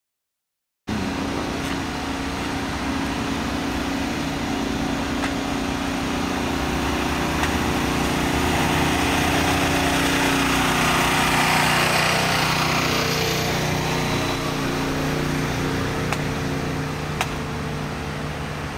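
Pickup truck towing a large enclosed trailer, driving slowly past with its engine running steadily; it gets louder as it passes about two-thirds of the way through, then eases off.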